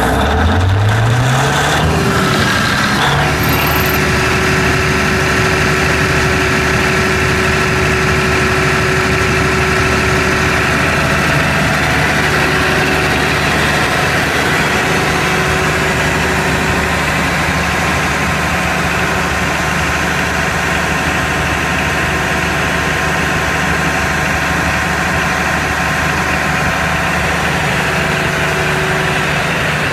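Cummins KTA38 V12 turbocharged diesel generator engine picking up speed over the first three seconds or so after starting, then settling to a steady idle.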